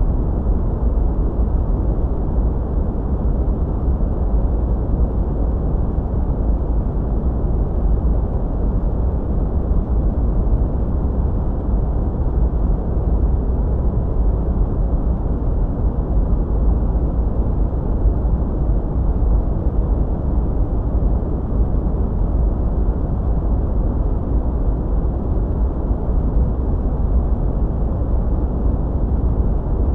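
Steady, unchanging sleep-aid noise, deep and rumbling: strongest in the bass and dying away toward the treble, so it sounds darker than hissy white noise.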